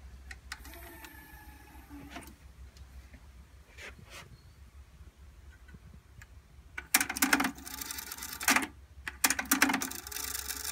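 Technics RS-TR373 cassette deck transport working as its buttons are pressed: a faint mechanical whir with a click about two seconds in and a few more clicks. Louder, uneven sound comes in the last four seconds as deck 2's tape is run.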